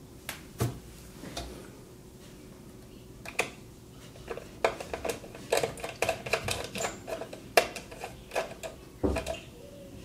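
Irregular small clicks and taps of hands handling hard plastic and metal parts inside an open desktop PC case. There is one click about half a second in, then a quick run of them from about three seconds in until near the end.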